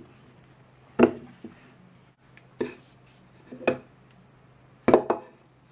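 Toy plastic saucepans being handled and set down on a tabletop: a handful of separate hollow plastic knocks about a second apart, the last one a quick double knock.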